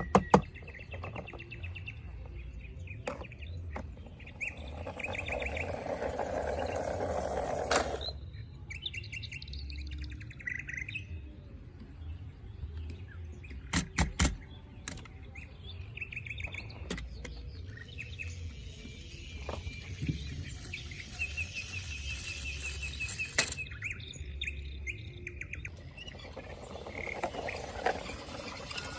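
Birds chirping in short trills, with a few scattered sharp clicks.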